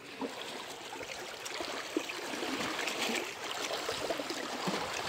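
Lake water lapping and trickling among shoreline boulders, a steady splashy wash that swells slightly partway through.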